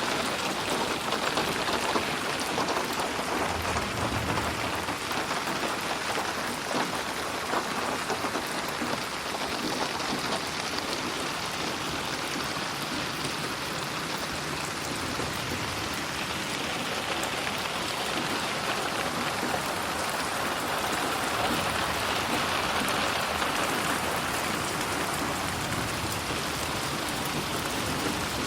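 Steady rain falling, an even hiss of drops on a surface with fine crackle, swelling slowly as the 8D audio panning sweeps it around the listener.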